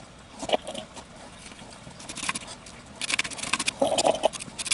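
A brush scrubbing the dusty circuit board of a graphics card: a few light clicks of handling at first, then quick scratchy brush strokes from about three seconds in.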